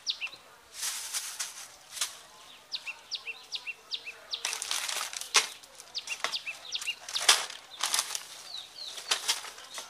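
Plastic snack packets rustling and crinkling in bursts as they are handled, with a couple of sharp knocks, while small birds chirp repeatedly.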